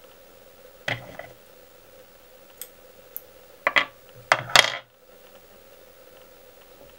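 Handling noise at a fly-tying bench: a sharp knock about a second in, two light ticks, then two quick clusters of hard clicks and clatter a little past halfway, as small tools or materials are picked up and set down. A faint steady hum sits underneath.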